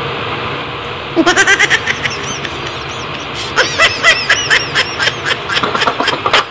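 A man laughing in a run of short, quick bursts, starting about a second in and going on after a short pause, over a steady background hiss.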